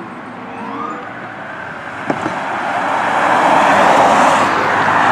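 Police car sound: a rushing vehicle noise that grows steadily louder over the first three seconds, with a short rising tone near the start and a single click about two seconds in.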